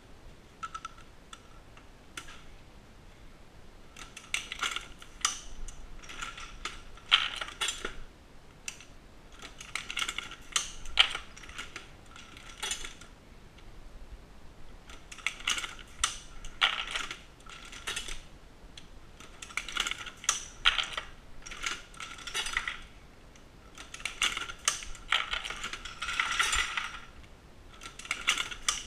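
Dillon SL900 progressive shotshell reloading press being cycled: bursts of metallic clicking and clattering every two to three seconds as the press goes through its strokes, with quieter pauses between.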